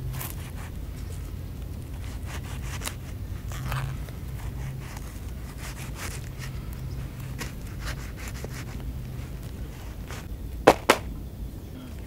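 Hands pulling and peeling ripe jackfruit bulbs out of the fruit's sticky, fibrous flesh: soft rubbing and small tearing clicks, over a low steady hum that fades out near the end. Two sharp snaps come close together near the end.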